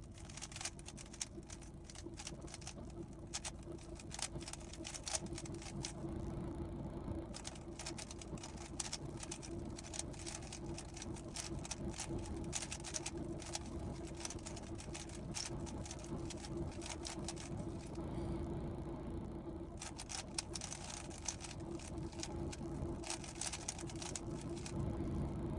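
A speedcube's plastic layers being turned, making rapid, irregular clicking and clattering with short pauses, over a steady low hum.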